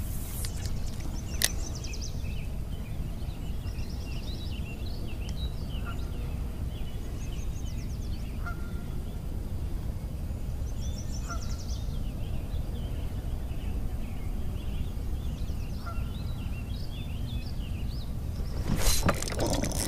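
Birds calling and chirping across the water over a steady low rumble. Near the end a louder burst of splashing on the water's surface.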